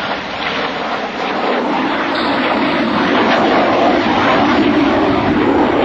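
Jet noise from a Boeing F/A-18F Super Hornet's twin General Electric F414 turbofans passing overhead, a loud even rush that grows louder over the first few seconds and then holds.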